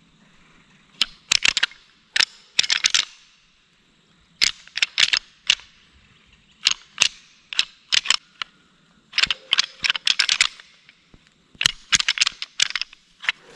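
Rattling antlers clashed and ground together as a deer-hunting call: short bouts of sharp clicking and clatter, every second or two, with brief pauses between.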